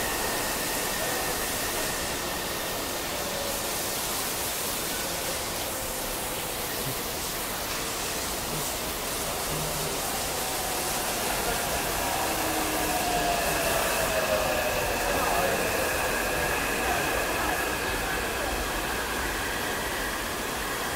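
Heavy rain hissing steadily over the metro station, while an electric metro train's motors whine and fall in pitch as it brakes into the platform, loudest around the middle.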